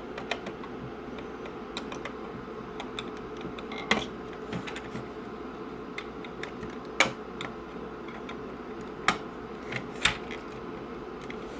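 Plastic catches on the back panel of a Saab 9-3 climate control unit being prised and unclipped: a scattered series of sharp clicks and snaps, with the loudest snaps in the second half, over a steady faint hum.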